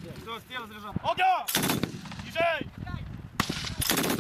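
DShK 12.7 mm heavy machine gun firing short bursts: one about a second and a half in, then two close together near the end.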